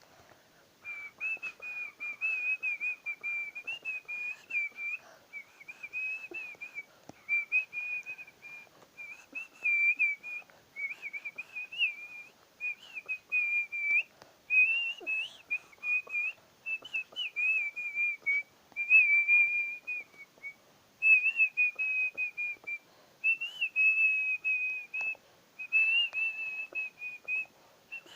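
A person whistling a tune by mouth, in the style of artistic whistling: a single clear high melody in short phrases with brief pauses for breath.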